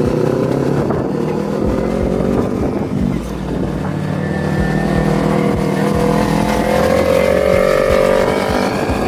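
Motorcycle engines running on the move, one holding a steady note while another climbs gradually in pitch through the middle as it speeds up.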